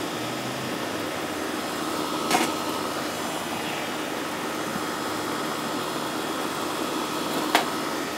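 A steady rushing hiss with a faint hum underneath, broken by two short, sharp clicks, one about two seconds in and one near the end.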